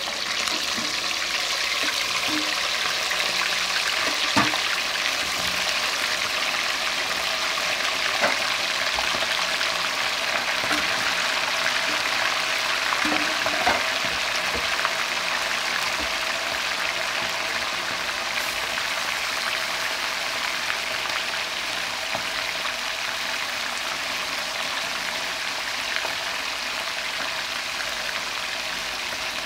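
Chicken pieces sizzling steadily as they deep-fry in hot cooking oil in a wok, with a few brief sharp clicks as more pieces go in and are moved about.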